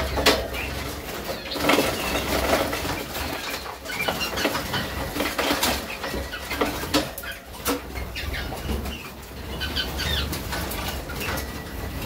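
Young male Harzer Roller canaries fluttering their wings in short flurries while they are handled and moved into an aviary, with a few short chirps.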